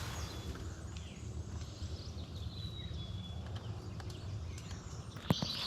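Faint, high songbird calls and chirps over a steady low background hum of the forest. A few sharp clicks come near the end.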